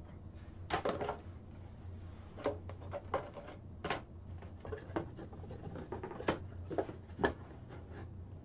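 Irregular clicks and light knocks of hard black plastic robot frame parts being lifted out of a cardboard box and set down on a wooden table, with some handling of the box. The knocks come one by one, the sharpest near the end.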